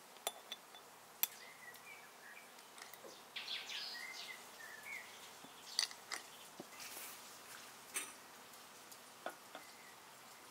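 Scattered sharp clicks and taps of a knife, a glass jar and a small glass shaker as lemon and white granules go into the jar, with a brief rustle a few seconds in. Short bird chirps sound now and then behind them.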